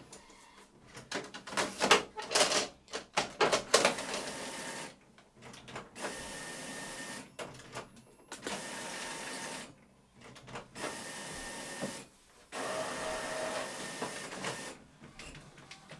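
Epson WorkForce Pro WF-R5690 inkjet printer printing a nozzle check page. A few seconds of rapid clicking and clatter give way to a series of steady whirring passes, each about a second and a half long, with short pauses between.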